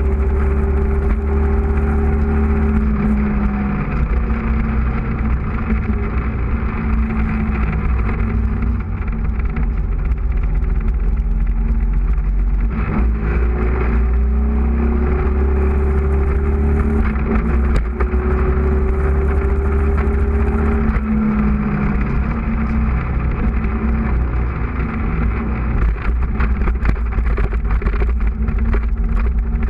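Motorcycle engine heard from an onboard camera at speed, under heavy wind rumble on the microphone. The engine note climbs as the bike accelerates and drops at each gear change or lift off the throttle, several times over.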